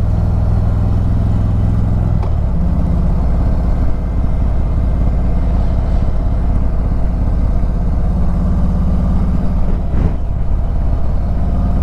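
Harley-Davidson Ultra Limited's V-twin engine running steadily on the road. The engine note drops about two seconds in and picks up again near the ten-second mark.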